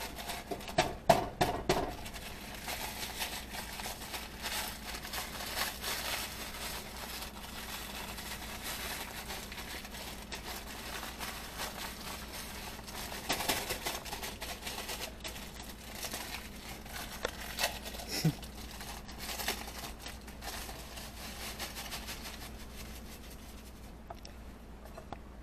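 Steady crinkling and crumpling of wrapping being handled, with a few sharper knocks about a second in and again around thirteen and eighteen seconds in.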